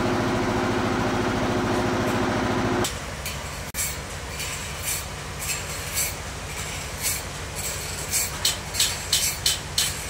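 The sawmill bandsaw's engine runs steadily and cuts off abruptly about three seconds in. After that a low hum continues under a run of sharp knocks, which come about two or three a second near the end.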